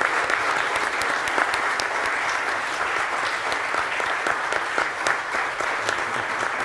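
Standing ovation: a roomful of conference attendees clapping steadily.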